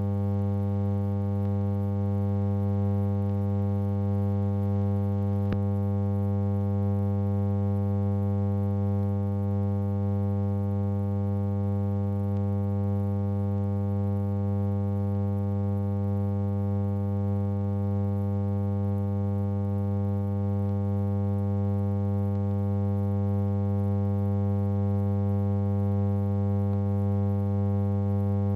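Steady electrical hum, a low buzz with many even overtones, on the track of a film that has no recorded sound; one faint click about five and a half seconds in.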